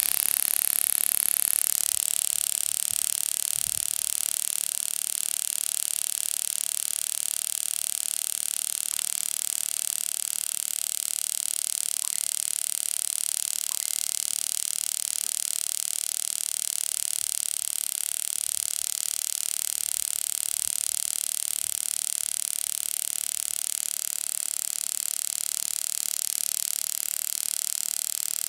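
Homemade mini spark-gap Tesla coil, powered by a mosquito swatter's 3 V to 6000 V high-voltage module, running with a steady high-pitched buzzing hiss. It starts abruptly.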